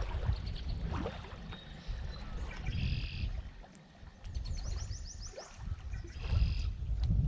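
Wind gusting against the microphone, with a bird calling a short high phrase three times and a quick high trill in between.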